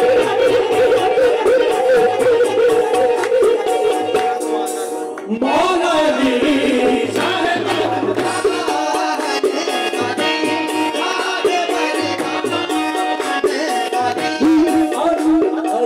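Live qawwali: men's voices singing over sustained harmonium-like tones, with a steady beat of hand claps and drums. About five seconds in the sound briefly drops and a voice slides upward into the next phrase.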